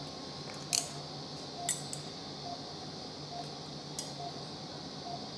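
Operating-room sounds: a faint, regular beep from the anaesthesia monitor a little more often than once a second, over a steady equipment hum. Three sharp metal clicks of surgical instruments, about one, two and four seconds in.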